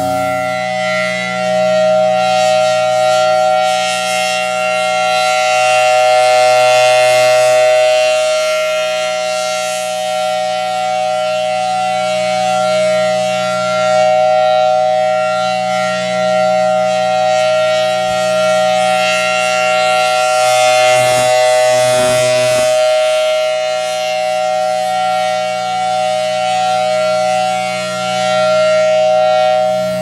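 Federal Sign & Signal Thunderbolt 1000T civil-defense siren sounding its steady alert: a two-note chord held at one pitch, swelling and fading every several seconds as the rotating horn sweeps past.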